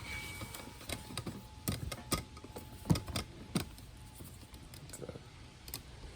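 Irregular light clicks and taps of hands handling the plastic power head of a Shark Rocket stick vacuum, a few sharper knocks among them.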